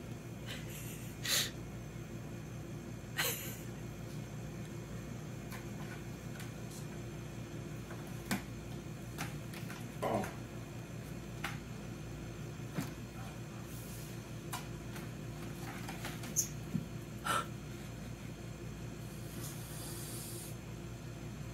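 House cats play-fighting on a carpeted cat tree: scattered short scuffs, taps and soft thumps of paws and bodies against the carpet and posts, over a steady low room hum.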